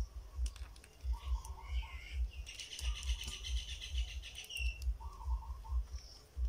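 Small birds chirping in the background, with a longer high trill about two and a half seconds in, over low bumps from hands handling a plastic action figure.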